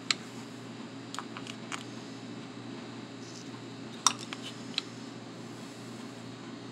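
Small sharp clicks and taps of a hard plastic starter-rope pull handle being handled while the new rope end is threaded through it and knotted, about seven in all, the loudest just at the start and about four seconds in. A steady low hum runs underneath.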